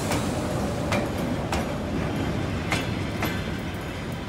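Russian Railways passenger carriages rolling slowly past with a steady rumble. Their wheels click over rail joints in two pairs of clicks.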